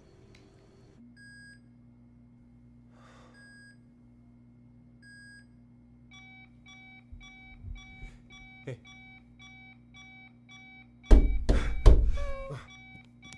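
Electronic alarm-style beeping: three single beeps about two seconds apart, then from about halfway a rapid, steady beeping that keeps going. Near the end several loud thumps, the loudest sounds here, are followed by a short gliding pitched sound.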